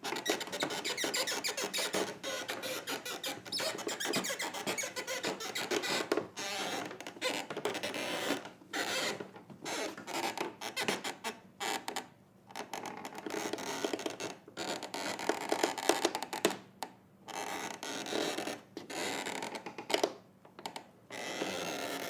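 Old wooden floorboards creaking: long, crackly, rasping creaks that come in stretches, with short pauses between them several times.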